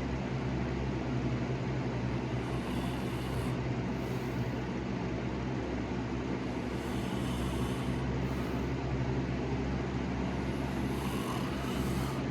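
Slow snoring breaths, a soft swell roughly every four seconds, over a steady low hum.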